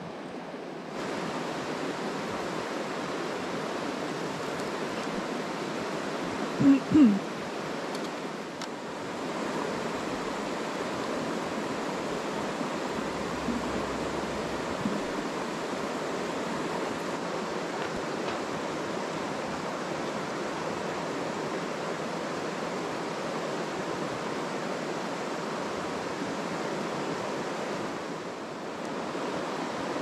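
A mountain stream rushing steadily. About seven seconds in there are two short, loud pitched sounds close together.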